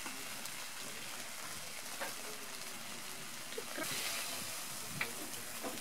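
Whole trout in a wire grill basket sizzling over hot charcoal as they are basted, with a few sharp pops. The sizzle grows louder for a moment about four seconds in.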